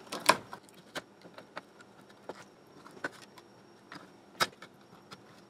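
Scattered clicks and knocks from a battery charger's circuit board being worked loose and handled inside its metal housing, with one sharper knock about four and a half seconds in.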